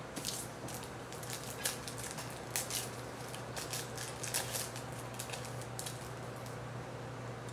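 A trading-card pack being torn open and its cards handled: a quick string of short crinkles and rustles that stops about six and a half seconds in.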